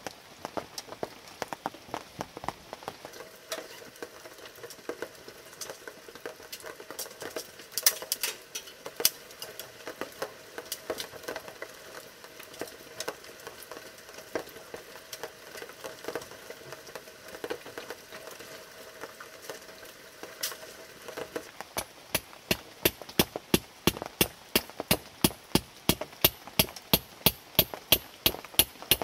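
Light scattered pattering and taps, then about 22 seconds in a mallet starts hammering a metal stake into gravel ground with quick, even blows, about three a second, louder than anything before.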